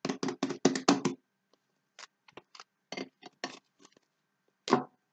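Soft, fluffy slime squeezed and folded by hand, making a quick run of sharp clicks and pops in the first second, then scattered softer clicks and one louder pop near the end.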